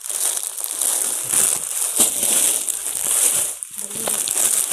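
Clear plastic shirt packaging crinkling and rustling as packets of folded shirts are handled and moved, with a few sharper crackles.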